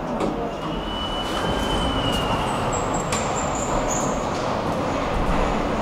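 Stockholm metro train running in the station, a steady rumble, with a thin high squeal for about two seconds near the start and a couple of sharp clicks.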